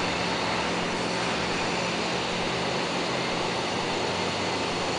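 Steady whooshing background noise with a low hum, the even sound of shop ventilation or an air-conditioning fan running.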